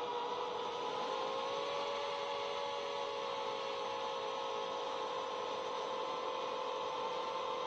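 A 7-inch FPV quadcopter's motors and propellers whine in flight at a steady pitch. The pitch rises slightly about a second in, over a hiss of rushing air.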